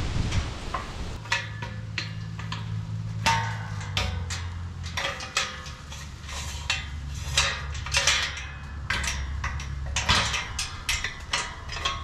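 Steel tube farm gate and its hinge hardware clinking and rattling as it is handled and fitted at the hinges: a run of irregular sharp metal knocks over a low steady hum.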